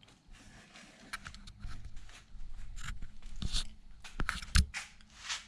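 Scattered handling noises: clicks, light knocks, scrapes and rustling as parts or packaging are moved about, with one sharper knock about four and a half seconds in.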